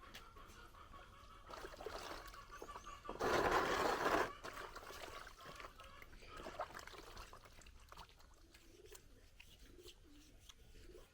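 Water poured and trickling over hands being washed, with a loud gush lasting about a second some three seconds in. A dove starts cooing near the end.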